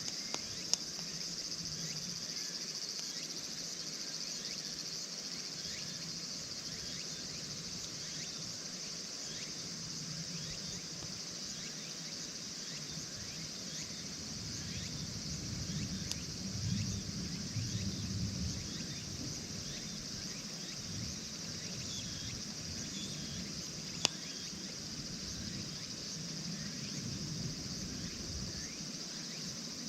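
Steady high-pitched insect chorus, with faint scattered crackles from a campfire. Two sharp clicks stand out, one about a second in and one about three-quarters of the way through, and a brief low rumble comes a little past the middle.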